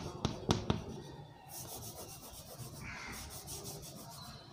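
Chalk on a blackboard: a few sharp taps, then a fast, even run of high-pitched scratching strokes.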